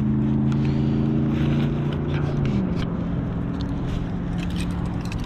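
A vehicle engine droning steadily, its pitch dropping about halfway through.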